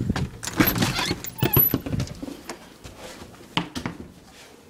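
Handling noise: a quick run of light clicks and metallic jingling over the first two seconds, dying away, then a single sharp knock about three and a half seconds in.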